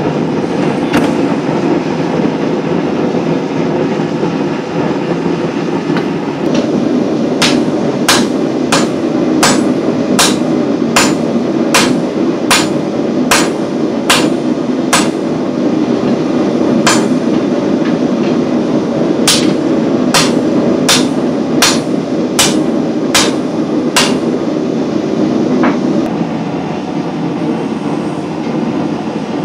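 Hand hammer striking a glowing steel sword blade on an anvil: about twenty sharp blows at roughly one and a half a second, in two runs with a pause between, starting several seconds in. Under them runs a steady mechanical drone from a machine running in the shop.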